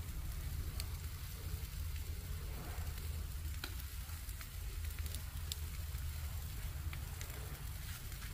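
Marinated chicken sizzling on a charcoal barbecue grill, a steady sizzle with scattered sharp crackles, over a steady low rumble.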